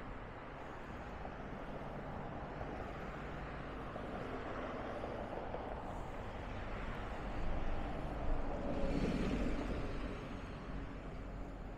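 Road traffic going by: a steady wash of car noise, swelling as a vehicle passes louder and closer about eight to ten seconds in.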